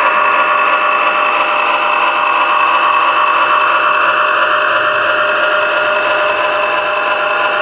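HO scale model diesel locomotive running: a steady engine drone with an even whine.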